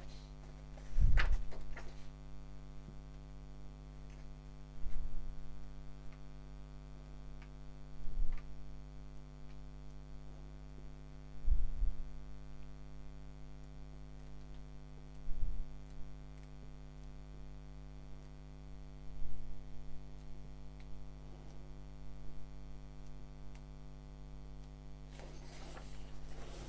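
Paper pages of a thick paperback book being turned by hand, a short rustle every few seconds, over a steady electrical mains hum.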